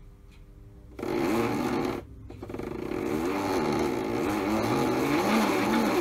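Small electric motor of a modified toy washing machine. A faint steady hum gives way, about a second in, to a sudden loud motor whine. This cuts out briefly, then starts again and builds up as the drum spins faster, its pitch wavering up and down in a regular cycle.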